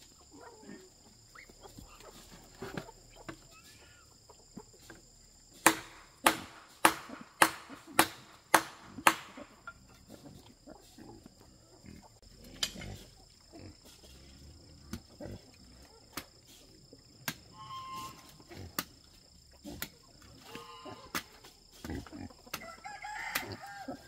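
Chickens clucking, with a run of seven sharp knocks, a little under two a second, a few seconds in.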